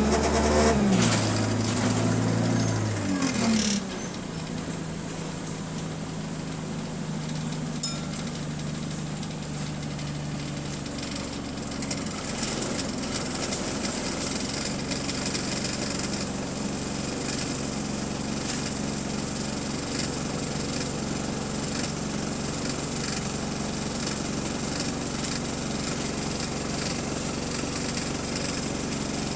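City bus diesel engine heard from on board. It winds down over the first few seconds, then settles to a low steady note, with one sharp knock about eight seconds in. It then runs on steadily from about twelve seconds, with the fine ticking of a subtle exhaust leak.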